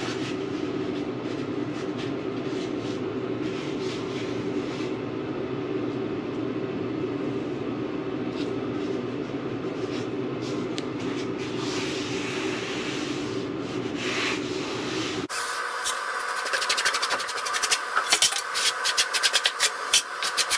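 Hands rubbing and pressing a fabric-faced Kerdi-Band waterproofing membrane down onto a thinset-bedded corner, over a steady hum. About three quarters of the way through, the sound changes abruptly to quick, scratchy rubbing strokes.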